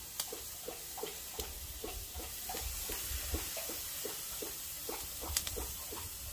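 Raw seasoned chicken drumsticks sizzling on the hot cast iron grates of a Char-Griller Akorn kamado at about 450 °F as they are laid on: a steady hiss with small crackles and pops several times a second, and a few sharper clicks.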